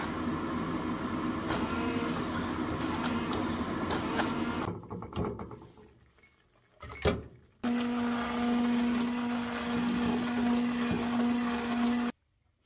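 Immersion (stick) blender puréeing cooked cherry tomatoes in a skillet into a smooth sauce: its motor runs with a steady hum for about five seconds and stops. After a pause with a single knock, it runs again for about four and a half seconds and cuts off suddenly.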